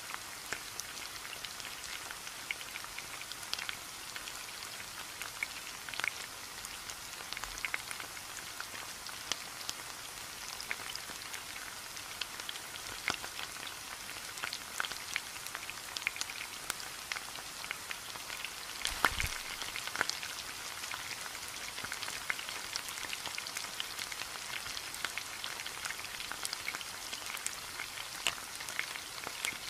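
Oil sizzling and crackling steadily around marinated beef tikka skewers shallow-frying in a frying pan on medium heat, with many small spits and pops. A single louder knock sounds about two-thirds of the way through.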